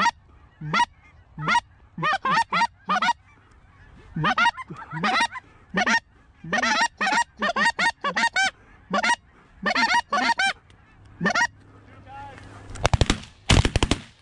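Geese honking: a run of loud, short, repeated goose honks as the flock is called in. Near the end comes a rapid volley of suppressed 12-gauge shotgun shots.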